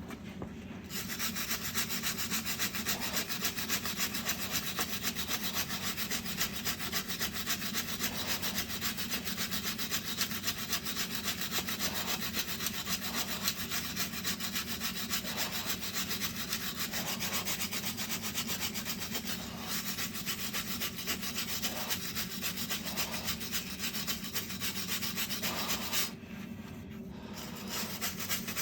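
Power drill running under load with a steady, rapid rasping, stopping briefly near the end and starting again.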